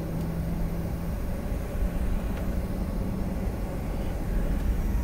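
Airliner cabin noise while rolling on the runway just after landing: a steady low rumble with a low hum that steps up slightly in pitch about a second in.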